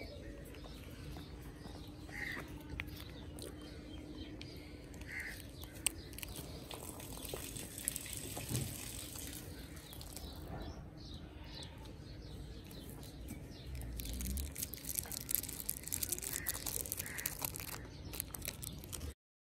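Outdoor background with a few short bird chirps and scattered rustles and clicks of handling, the clicking and crackling getting busier near the end before the sound cuts off abruptly.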